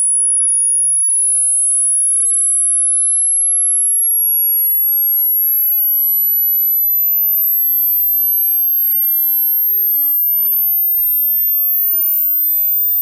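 Hearing-test sine tone: a single very high-pitched pure tone that climbs slowly in small steps, in the upper range where, depending on age, many listeners stop hearing.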